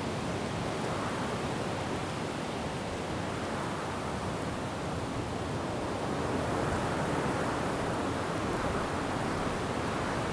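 Wind rushing through forest trees with rain falling: a steady noise that swells gently in gusts, growing a little louder about six seconds in.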